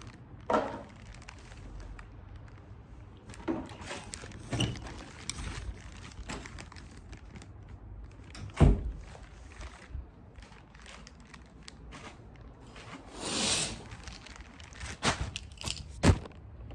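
Scattered knocks, thumps and clicks of objects being handled, the loudest about halfway through, with a brief rustle a little over three quarters of the way in.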